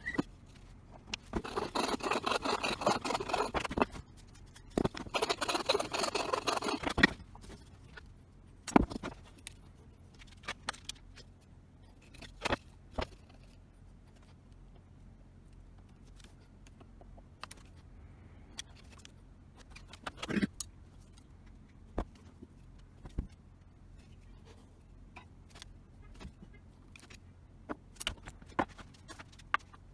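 Two bursts of abrasive workshop noise, each two to three seconds long, from a tool working on material, followed by scattered light clicks and knocks from parts and tools being handled.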